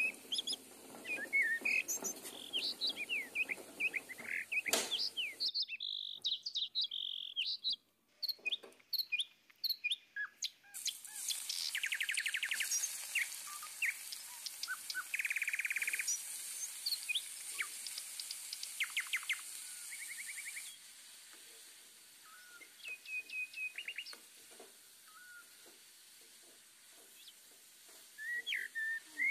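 Birds chirping and trilling throughout, many short rising and falling calls with a few fast trills. From about 11 to 21 seconds a steady hiss of onions sizzling in hot oil runs underneath, starting and stopping abruptly.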